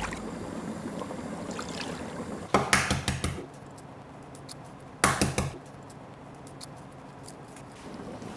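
Water bubbling in a stainless steel pot, with two short clusters of sharp knocks against the countertop, about two and a half and five seconds in, as a boiled egg is cracked on the counter.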